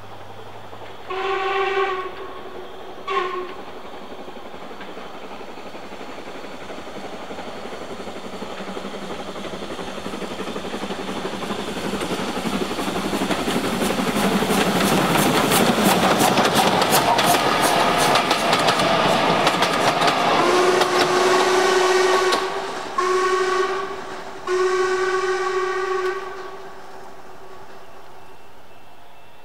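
Steam locomotive whistle gives two short blasts, then a train draws near and passes, growing loud with a quick, even beat. The whistle sounds three more blasts as it goes by, and the sound fades away.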